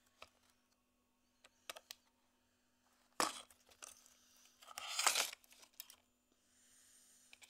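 Handling noise: scattered small clicks, a sharp knock about three seconds in, and a rustling scrape around five seconds, over a faint steady hum.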